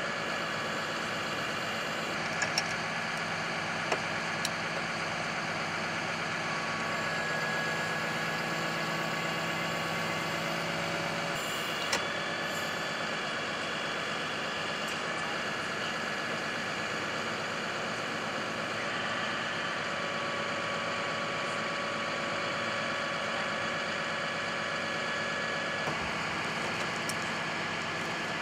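Truck engine idling steadily, its hum shifting slightly in tone about halfway through, with a few light knocks in the first dozen seconds.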